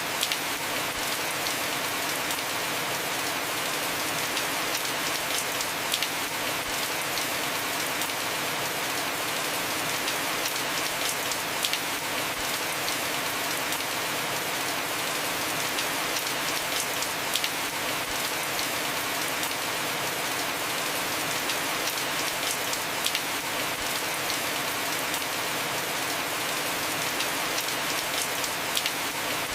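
Heavy rain falling steadily on a house roof, a dense even hiss with occasional sharper drop hits standing out every few seconds.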